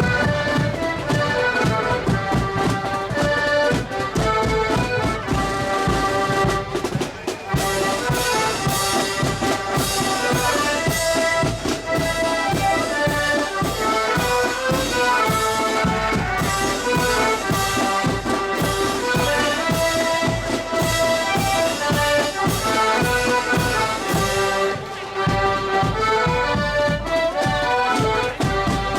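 Marching accordion band playing a march: accordions carry the melody over a steady drum beat. The drumming gets brighter, with more cymbal and snare, from about seven seconds in.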